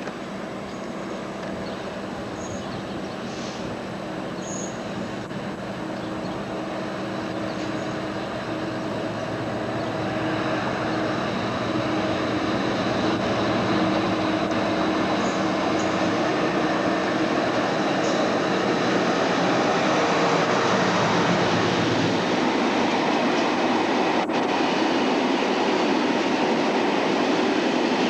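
Diesel freight locomotive hauling a train of oil tank wagons approaches and passes, its engine note growing steadily louder over the first half. About two-thirds of the way through the engine tone falls away and the rumble of the tank wagons' wheels rolling by takes over.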